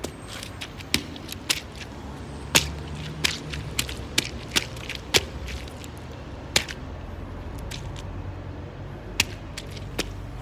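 A Vans sneaker grinding and pressing into squashed orange pulp on a hard floor: sharp wet crackles and clicks at irregular intervals, over a low steady rumble in the background.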